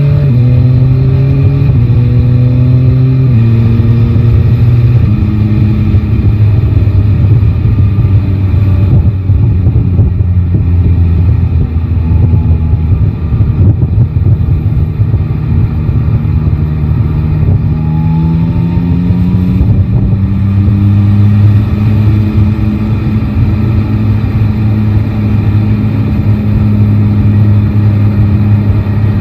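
Yamaha Tracer 9 GT's 890 cc inline-three engine heard from the saddle, revving up and stepping through several upshifts in the first five seconds, then running steadily at cruise before the revs climb again about eighteen seconds in. Wind buffets the microphone.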